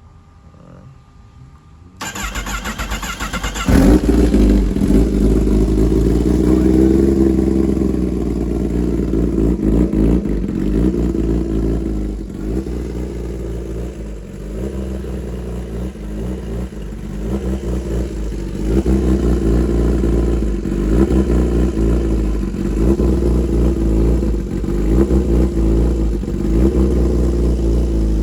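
2016 Kawasaki Ninja ZX-10R inline-four with a full titanium SC-Project exhaust being started: the starter cranks about two seconds in and the engine catches a moment later. It then settles into a loud idle that rises and falls with light throttle in the second half.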